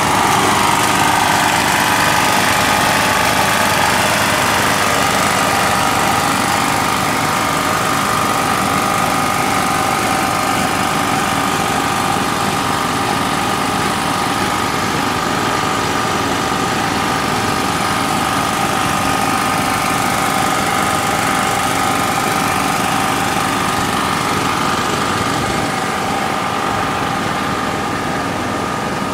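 A small engine running steadily at one unchanging pitch, without a break.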